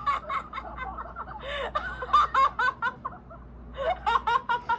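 A person laughing hard in quick, high-pitched bursts, in two runs with a short pause between them.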